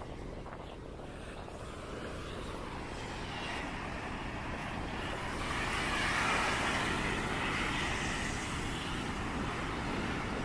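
Surf breaking and washing up a sandy beach, growing louder until about six seconds in, over a steady low rumble of wind on the microphone.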